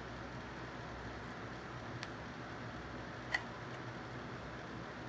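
Steady low room noise with two faint short ticks, one about two seconds in and a sharper one a little after three seconds, while sealant is squeezed from a caulk tube.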